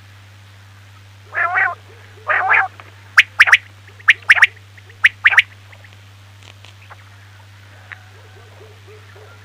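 Quail calling: two low, hoarse notes, then three quick phrases of sharp whistled notes, each a single note followed by a quick pair. A steady low electrical hum runs underneath.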